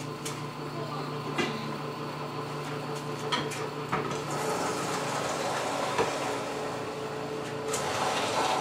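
Kempo twin-gear juicer running on carrots: a steady motor hum with a few sharp knocks as the carrots are pushed into the feed chute and crushed.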